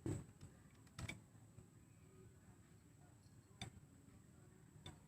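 Isolated sharp clicks and knocks of metal detector parts being handled and fitted together during assembly, four separate ones with near silence between.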